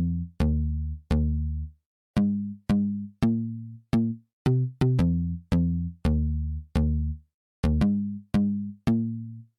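Background music: an electronic track of short, sharply struck synth notes, about two a second, each dying away quickly.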